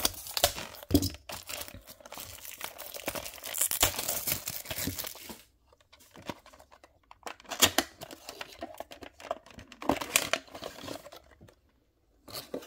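Plastic shrink-wrap being slit and torn off a small cardboard model-car box, crinkling steadily for about five seconds, then shorter crackles as the box is opened and a clear plastic blister tray is pulled out.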